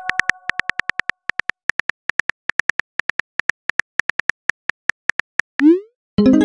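Simulated phone-keyboard clicks from a texting-story app, quick even taps about four to five a second as a message is typed. About five and a half seconds in, a short rising whoosh marks the message being sent, followed near the end by a brief ringing chime.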